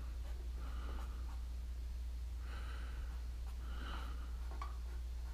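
Three slow breaths close to the microphone over a steady low electrical hum from the breaker panel, a hum whose cause the owner doesn't know (main breaker or a branch breaker).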